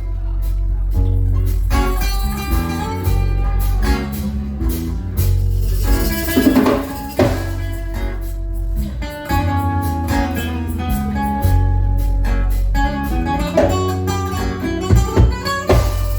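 Band playing an instrumental intro: guitar lines over a steady bass, with a few sharp percussive hits.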